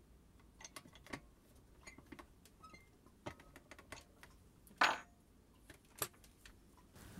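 Scattered small clicks and knocks of tools and parts being handled at a workbench, with a louder clack about five seconds in and another a second later.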